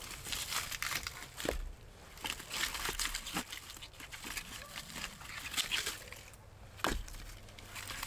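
Split firewood being stacked into a metal log rack: crunchy rustling with a few sharp knocks as logs are set down, the loudest near the end.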